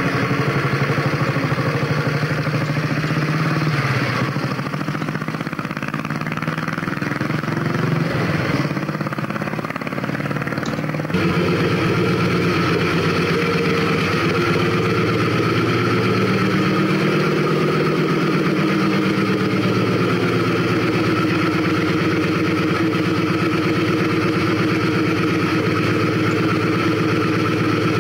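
Vintage motorcycle engines running: over the first several seconds the engine note shifts and falls away as the bike pulls off. About eleven seconds in it switches abruptly to another motorcycle engine running steadily at idle.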